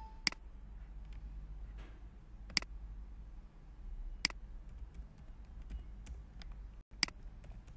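Four sharp computer mouse clicks, one to two and a half seconds apart, with a few fainter ticks between them, over a steady low hum.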